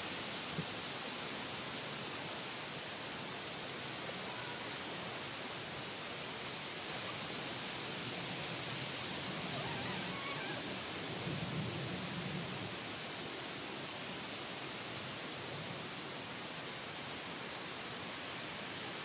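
Steady, even outdoor hiss with no distinct events, and a brief low rumble about eleven seconds in.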